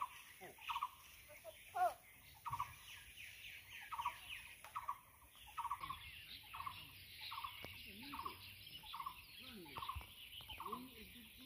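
Birds calling in tea-garden woodland: one bird repeats a short note about every two-thirds of a second, over many thin chirps and twitters from others, with a few lower calls near the end.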